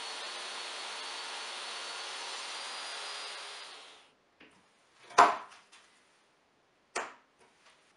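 DeWalt table saw motor running steadily with the blade spinning free, fading out about three and a half seconds in. Then a spring clamp is snapped onto a plywood board with a sharp clack, and a second, weaker clack follows about two seconds later.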